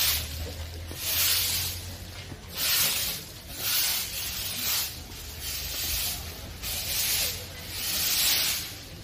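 Long-handled broom sweeping dirt ground, about one scraping swish a second, eight or so strokes.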